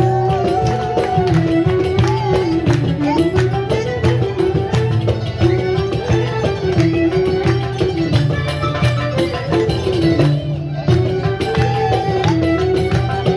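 Middle Eastern-style folk music: a sustained, wavering melody line over busy hand percussion.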